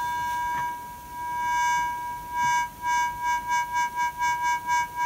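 Korg Monotron Duo analog synthesizer holding one steady high note while its low-pass filter cutoff is worked. The tone swells and dulls at first, then pulses on and off, faster and faster, at about four times a second.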